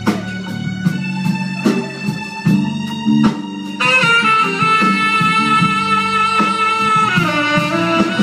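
Live jazz band playing with drum hits, and a tenor saxophone taking the lead with long held notes from about four seconds in.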